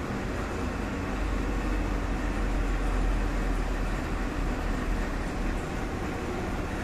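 Steady low rumbling background noise with a hiss, swelling a little louder for a few seconds in the middle.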